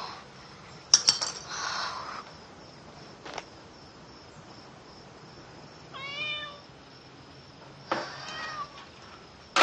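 A house cat meowing: one clear meow about six seconds in and a shorter one near eight seconds. A sharp knock about a second in, followed by a brief rustle, is the loudest sound.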